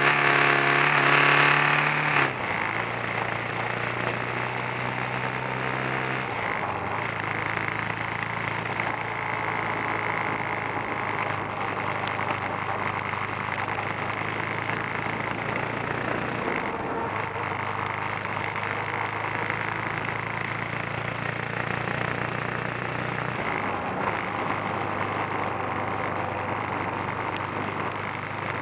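Kawasaki 454 LTD motorcycle's parallel-twin engine under way, pulling at high revs for the first two seconds, then dropping sharply in pitch and running on at steadier, lower revs, its note stepping up or down a few times.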